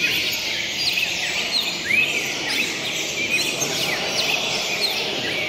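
Many songbirds singing at once, short overlapping chirps and arched calls, over a steady background hiss of noise, the kind of chorus heard at a fibra song contest.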